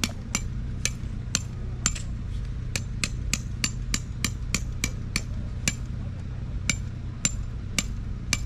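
Hammer driving a metal peg into the ground: steady strikes about two or three a second, each with a short metallic ring.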